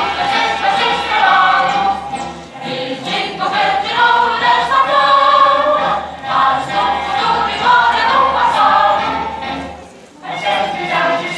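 A choir singing with musical accompaniment, with sustained sung notes and a brief lull near the end.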